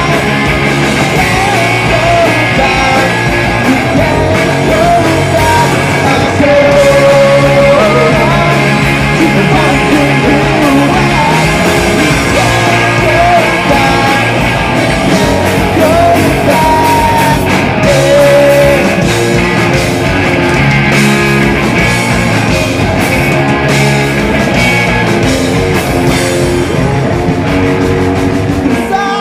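Punk rock band playing live and loud: distorted electric guitars and drums.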